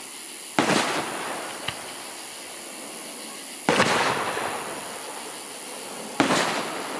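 Aerial fireworks shells bursting: three sharp booms about three seconds apart, each trailing off in a rolling echo, with a small pop about a second after the first.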